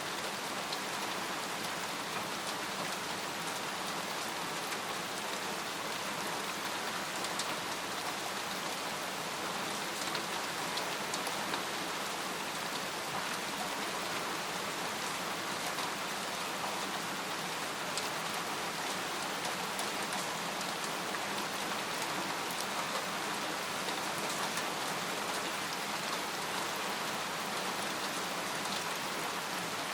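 Steady rain falling on a tent: a dense, even hiss with scattered single drop ticks.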